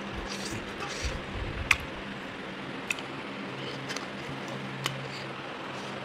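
Close-up eating sounds of a person chewing chicken, with a few sharp clicks, the loudest about a second and a half in, over a faint steady hum.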